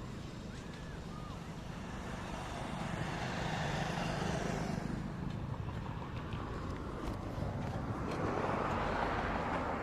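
Passing road traffic: a steady rumble with two vehicles swelling past and fading, one about three seconds in and one near the end.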